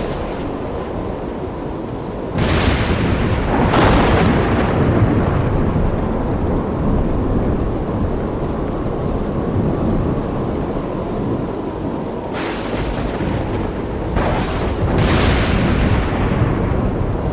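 Thunderstorm: heavy rain falls steadily throughout. Several sharp claps of thunder break in, two of them a few seconds in and three more near the end, each rumbling away over a few seconds.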